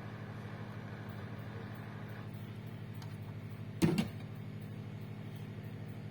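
A steady low electrical hum, with one sharp, loud snap about four seconds in.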